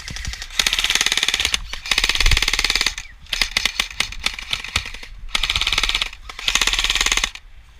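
Airsoft rifle firing on full auto in about six bursts of rapid clicking shots, each roughly a second long, with short pauses between them.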